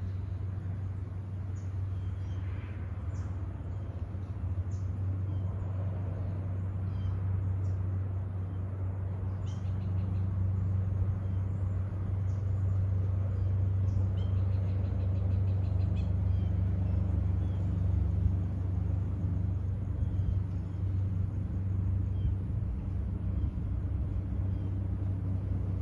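A steady low engine hum, slowly growing louder, with scattered faint bird chirps and a brief rapid trill partway through.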